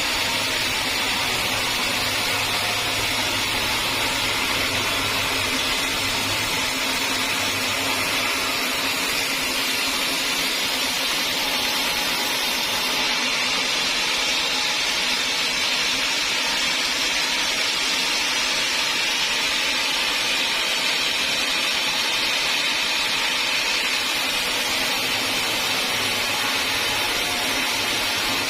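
Sawmill saw running, a steady, even, high-pitched noise without breaks.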